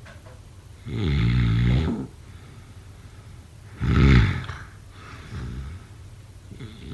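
Snoring: loud, rasping snores about every three seconds, with one about a second in, the loudest about four seconds in, a softer one just after five seconds, and another starting near the end.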